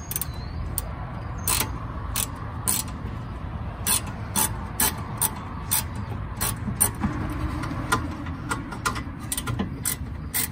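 Hand ratchet wrench clicking in short back-and-forth strokes, a few sharp clicks a second in uneven runs, as a brake caliper bolt is run down tight.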